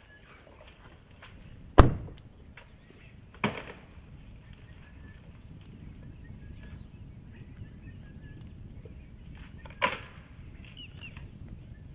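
Sharp cracks of wood as an African elephant pulls with his trunk at the branches of a fallen sycamore fig to break them off. There are three cracks, the loudest about two seconds in, a second one a moment later and a third some six seconds after that, over a steady low background.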